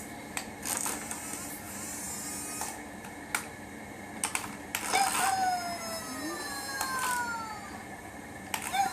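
Remote-control Hello Kitty toy scooter driving over the floor: a low steady motor hum with scattered sharp plastic clicks and knocks. About five seconds in, a smooth falling tone sounds for around two seconds.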